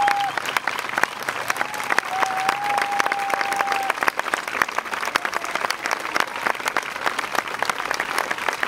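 Audience applauding, a dense steady clatter of many hands clapping. A single held tone sounds over it twice in the first four seconds.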